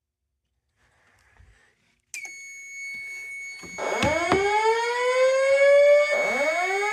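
Fire alarm system going into alarm: a steady high-pitched electronic tone comes on about two seconds in, and a second and a half later the voice evacuation speakers start the slow whoop evacuation tone, a rising sweep repeated about every two and a half seconds, with a couple of sharp clicks near the first whoop.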